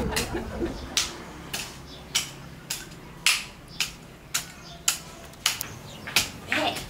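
A small hand hoe chopping and scraping into garden soil in quick, regular strokes, a little under two a second.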